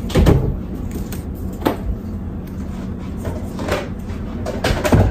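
A few soft, dull thumps and knocks on a tabletop as paper cutouts are pressed down and glued with a glue stick.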